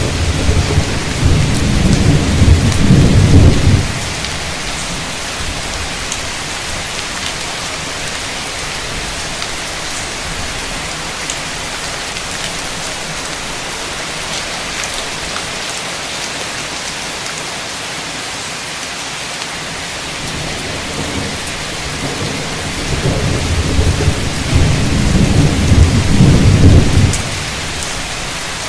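Heavy rain pouring steadily, with thunder rumbling twice: once for about four seconds at the start and again for about five seconds near the end.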